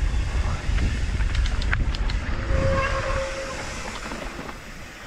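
Mountain bike rolling down a dirt trail: a heavy low rumble of wind and tyre noise, with a few sharp clicks and rattles from the bike about a second and a half in. Around the middle a brief steady whine rises over the rumble and fades.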